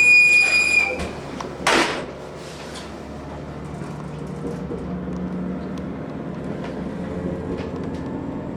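Route bus interior: a steady electronic door buzzer sounds for about a second, then a short hiss of air from the pneumatic door or brake gear. After that the bus's diesel engine hums steadily.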